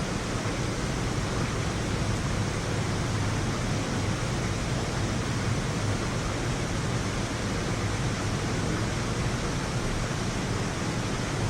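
Steady rain falling during a thunderstorm, an even hiss with no thunder claps.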